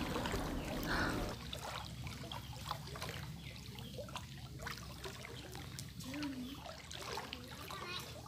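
Faint lapping and trickling of floodwater, with small scattered splashes, as a raft is pushed through it by wading children.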